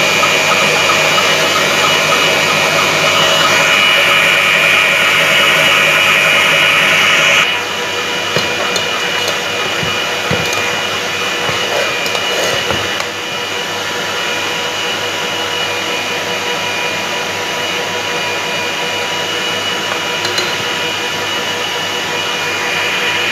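Kitfort stand mixer whirring steadily at high speed as it whips egg whites into meringue. After about seven seconds the sound cuts to a quieter steady whir with a few light clicks of a spoon in a saucepan of boiling sugar syrup.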